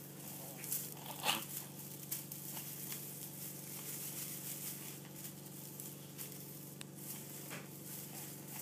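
A kitten batting a small shiny toy about on a hard polished surface: a few light rustles and taps, the loudest about a second in, over a steady low hum.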